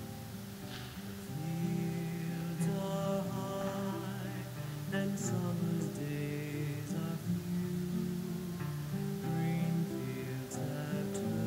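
Hymn music: held instrumental notes with singing, growing louder about a second and a half in.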